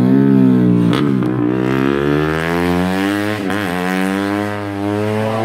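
Yamaha Y15ZR 150cc single-cylinder four-stroke underbone race motorcycle engine revving hard. Its pitch falls and climbs again, with short breaks about a second in and around three and a half seconds.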